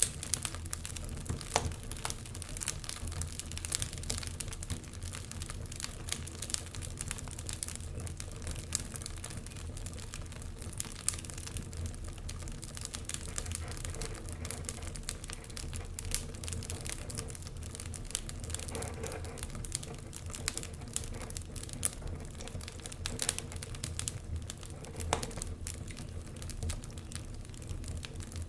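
Wood fire crackling in a fireplace: a steady run of irregular sharp pops and snaps over a low, even rumble of the burning fire.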